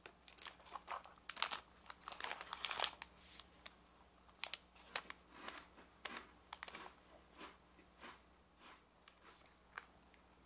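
Plastic wrapper of a Bisco strawberry cream sandwich biscuit pack crinkling and tearing as it is handled and torn open by hand. A dense run of crackles comes in the first three seconds, then scattered crinkles.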